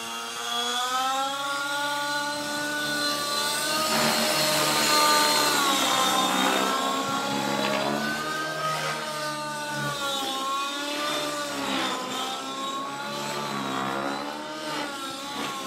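Radio-controlled model helicopter, an Align T-Rex, flying overhead: its motor and rotor whine rises and falls in pitch several times as the throttle and rotor speed change.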